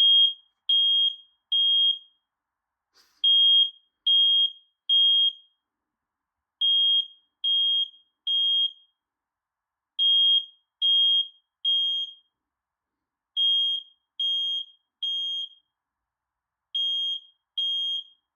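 Battery-powered smoke alarm sounding its full alarm, set off by a test with aerosol smoke spray. High-pitched beeps in sets of three, each set followed by a pause of about a second and a half, repeating steadily.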